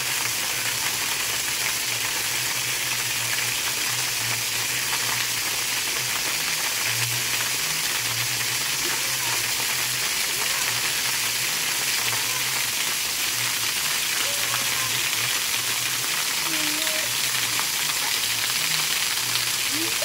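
Spring-fed waterfall splashing down, a steady rushing hiss.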